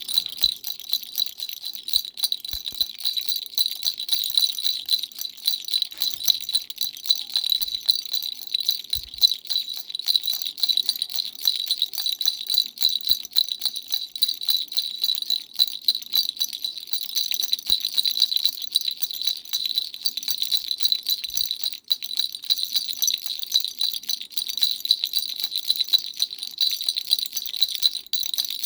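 Dumbbell-shaped baby rattle shaken quickly and without pause, a steady stream of fast rattling clicks with a bright jingling ring.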